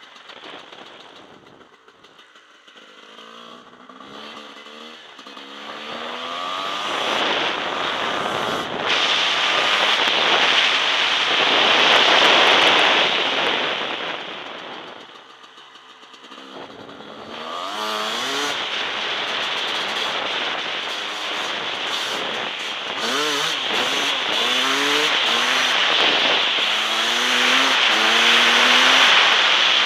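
Husqvarna WR300 two-stroke enduro engine pulling through the gears, its revs rising again and again. Loud rushing wind and road noise covers it at speed. Twice the engine falls back and it goes briefly quieter, near the start and about halfway through.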